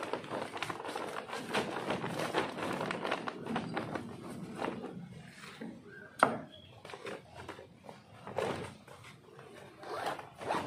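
Crackling rustle of a woven compost bag and the material in it being handled and packed by hand, with a single sharp click about six seconds in.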